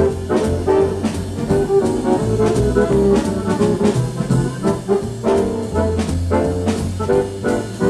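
Jazz dance-band music with trombones and trumpets over a walking bass, played from a vinyl LP on the Anders Nicholson 2655 turntable and recorded straight from its output.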